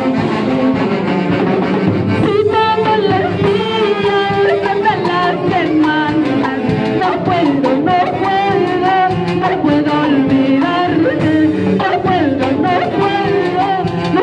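A live orchestra of saxophones with timbales and drum kit playing a steady beat, while a woman sings into a microphone over the band, amplified through PA loudspeakers.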